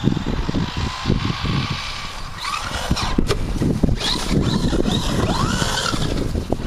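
Brushless electric motor of a Traxxas Stampede 4x4 RC truck (Turnigy 3190 kV motor on a 3S LiPo) whining as it drives through snow. From about two seconds in, the whine rises and falls in pitch again and again as the throttle is worked.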